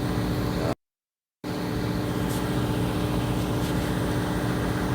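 Steady low drone of the fishing boat's motor, with a constant hum running through it. The sound cuts out completely for under a second about a second in, then resumes unchanged.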